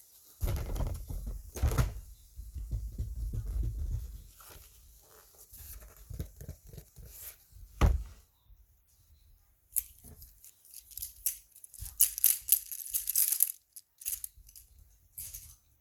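Fidget toys handled close to the microphone for ASMR: irregular rubbing, tapping and clicking, with one sharp click about eight seconds in. Near the end comes a run of crisp, tearing-like rustling and crackling.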